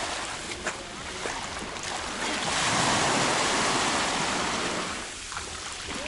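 Small sea waves washing onto a pebble shore; one wave swells in about a third of the way through and draws back near the end.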